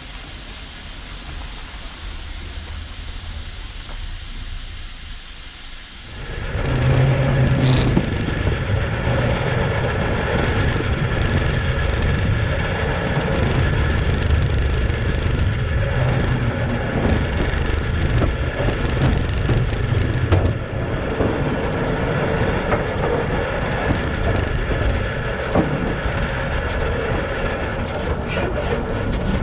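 Train rolling past close by on the rails. A soft steady hiss at first, then about six seconds in a loud, dense low rumble of wheels on track sets in, with irregular bursts of high-pitched noise.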